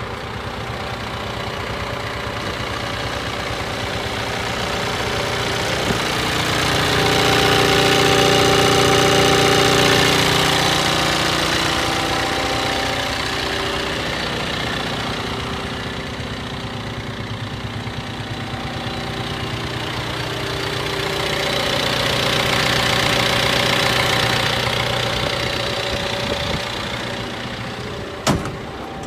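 John Deere 310L backhoe's four-cylinder PowerTech Plus 4045 diesel engine running steadily. It swells louder twice, about a third of the way in and again about three quarters through, and a single sharp knock sounds near the end.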